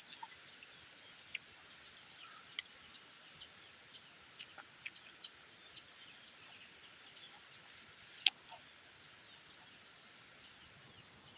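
Birds chirping in a rapid, steady run of short, high, falling chirps, several a second, with a sharp click about eight seconds in.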